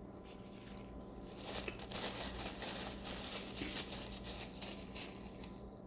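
Paper fast-food burger wrapper crinkling and rustling, starting about a second and a half in, over a faint steady hum.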